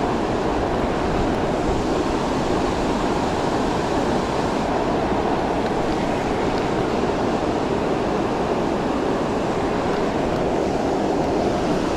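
Steady rushing of flowing river water, an even unbroken noise with no let-up.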